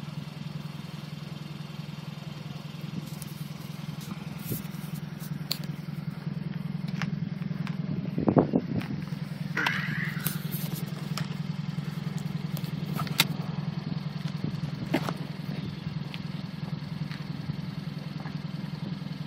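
Hyundai Veloster's four-cylinder engine idling steadily through a Magnaflow axle-back exhaust, recorded from behind the tailpipe. It has a low, even exhaust note, with a few faint clicks and one short swell in level about eight seconds in.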